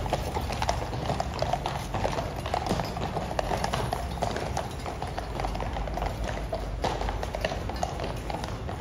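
Several cavalry horses walking on stone paving, their shod hooves clip-clopping in a dense, overlapping, irregular patter.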